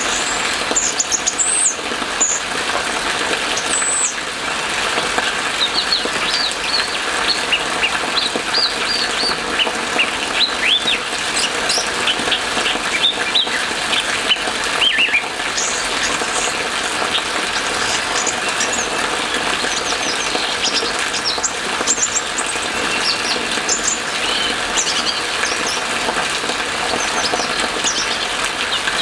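Orange-headed thrush singing a rapid string of short, varied whistled and chirping notes, over a steady hiss of rain.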